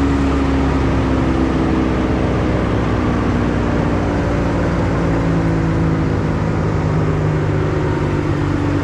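Wood chipper's engine running steadily at high speed, its pitch sagging slowly over several seconds as it comes under load.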